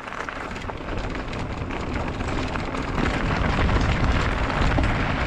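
Mountain bike tyres rolling over a loose gravel and stone track, with many small clicks of stones and a low rumble of wind on the helmet camera's microphone, growing louder.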